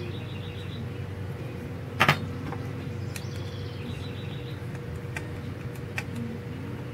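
A small steel open-end wrench set down on a workbench with a sharp metal clank about two seconds in, then quiet hand-tool work with a screwdriver on a small carburetor, and a light click near the end, over a steady low hum.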